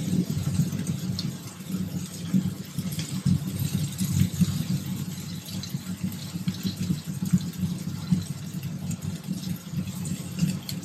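A steady low motor-like hum with faint light clicks scattered over it.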